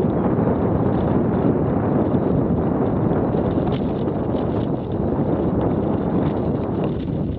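Steady wind rush buffeting a Garmin VIRB action camera's microphone as a mountain bike rides along a dirt singletrack.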